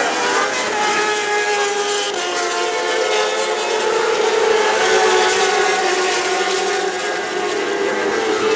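Racing superbike engines running at high revs on track. The engine note climbs a little toward the middle and then eases off.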